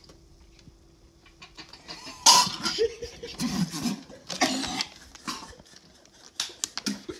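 A person coughing in several bursts, starting about two seconds in.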